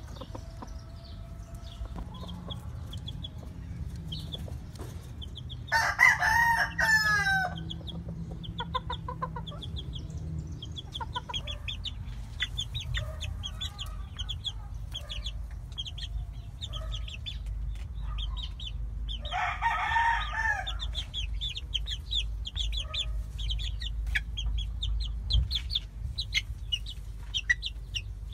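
American gamefowl: a rooster crows loudly about six seconds in and again around two-thirds of the way through, over many short, high chirps from young birds.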